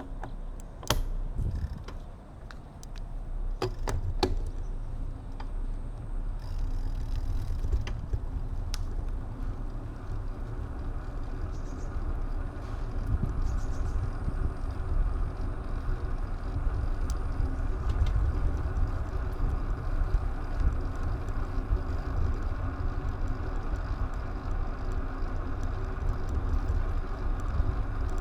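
Wind and road noise picked up by a mounted action camera while riding: a steady low rumble, with a few sharp clicks in the first few seconds.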